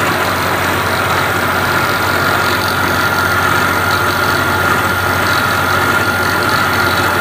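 Webb 3-horsepower milling machine running on a VFD, its end mill cutting a slot in aluminum as the table feeds sideways. A steady machining noise with a constant high whine over a low motor hum.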